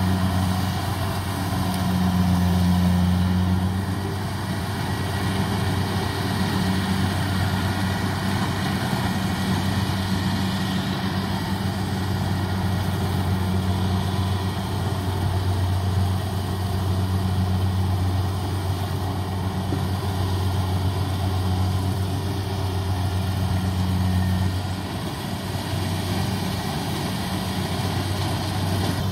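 Kubota DC80 Plus rice combine harvester running while cutting rice: a steady engine drone over the noise of its working gear, easing a little about 25 seconds in.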